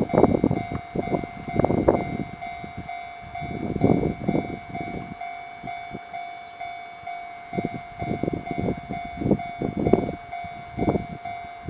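A Japanese railway level-crossing alarm rings without pause while a train passes, its wheels clattering over the rail joints in irregular groups. The clattering lulls briefly about halfway through.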